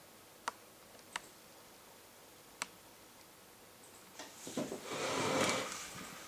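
Three short, sharp clicks spaced about a second apart, then about two seconds of rustling noise starting near the end.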